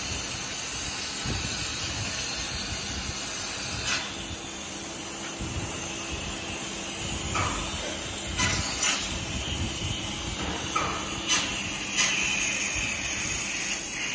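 CNC laser cutter cutting 15 mm steel plate: a steady hiss from the cut, with several short sharp clicks scattered through and a faint low hum underneath.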